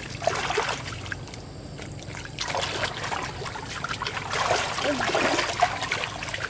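Water splashing and trickling in irregular surges, over a low steady hum.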